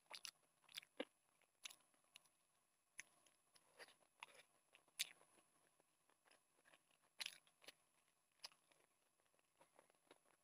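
A person chewing and biting meat off a spiced chicken drumstick, close to the microphone: faint, irregular clicks and short crackly mouth sounds with quiet gaps between them.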